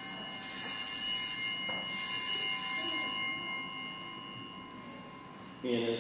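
Altar bells, a cluster of small sanctus bells, shaken and ringing brightly, re-rung about half a second and two seconds in, then fading out: the bells rung at the elevation during the consecration.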